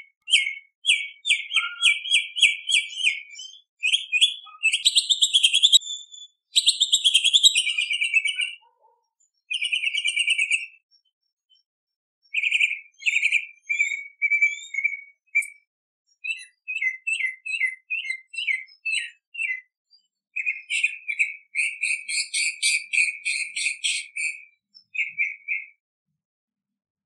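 Tropical mockingbird singing a string of varied phrases, each note repeated several times in quick succession, with a harsher, scratchier passage about five to eight seconds in and short pauses between phrases; the song stops about a second before the end.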